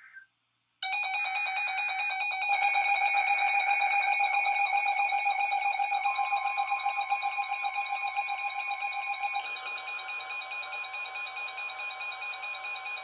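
Emergency alert tones announcing a new special marine warning: a loud electronic alarm with a fast-pulsing, buzzy tone, stepping up in loudness a couple of seconds in and easing a little near the end. A steady single-pitch weather radio warning tone joins about six seconds in.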